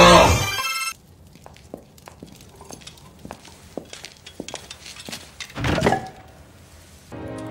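A loud, drawn-out vocal note cuts off about a second in. Faint scattered knocks and clinks follow, with one louder thump just before six seconds, and a steady chord starts in the last half second.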